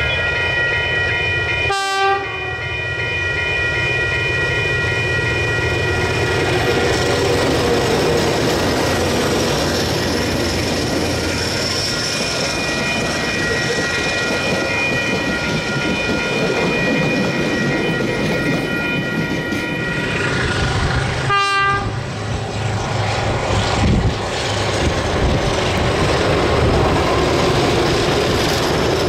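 DJ class diesel-electric locomotive hauling passenger carriages past, with a long steady multi-note horn held over the train's rumble for most of the pass. About three quarters of the way through the horn stops, leaving the engine and the clatter of carriage wheels over the rails.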